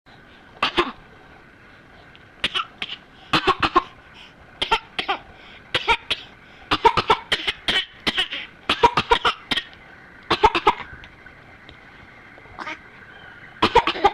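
A young child's cough-laugh: short, breathy, cough-like laughs that come in quick clusters of two to four, repeated every second or two, with a pause shortly before a final cluster near the end.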